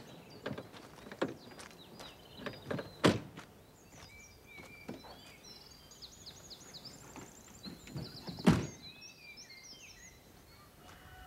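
A car's tailgate slams shut with a heavy thunk about eight and a half seconds in, the loudest sound. Before it comes a sharper slam about three seconds in, likely a car door, among short steps on gravel. Small birds chirp through the middle.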